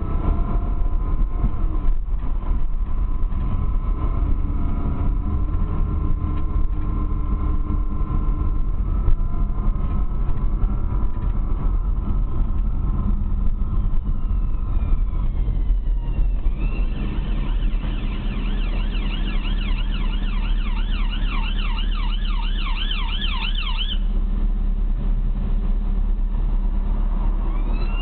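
Chevrolet Camaro engine running steadily, with the noise the owner suspects is a fault; a thin steady whine sits over it for roughly the first half. From about 16 to 24 seconds a fast-warbling siren sounds over the engine.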